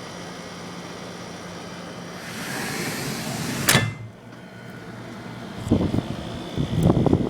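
1991 Friedrich Quietmaster 12,000 BTU window air conditioner running with a steady hum. A rushing noise builds and ends in a single sharp clack about four seconds in, and rough crackling noise starts near the end.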